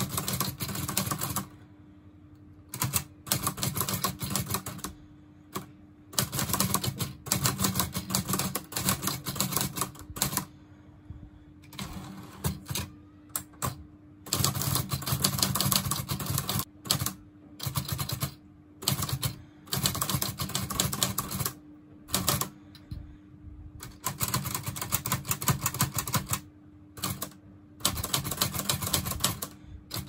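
Olivetti Lettera 25 manual portable typewriter being typed on: quick runs of key and typebar strikes in bursts of a second or two with short pauses between them. The machine's base has been padded to damp its clatter.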